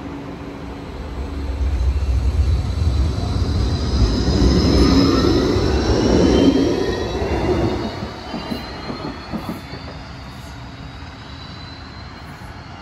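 G:Link light-rail tram pulling away from the platform and passing close. A low rumble swells over the first few seconds with several whines rising in pitch as it accelerates, then fades as it leaves, with a few clicks about two-thirds of the way through.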